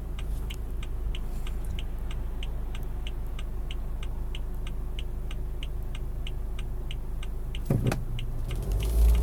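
Car's turn-signal indicator ticking steadily about three times a second while the engine sits shut off by auto stop-start. Near the end there is a sudden thump and the engine starts again, its low running sound rising.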